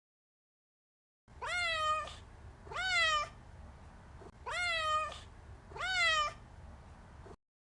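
Domestic cat meowing four times, in two pairs, each meow rising sharply and then sliding slightly down. The meows start after about a second of silence and stop abruptly near the end.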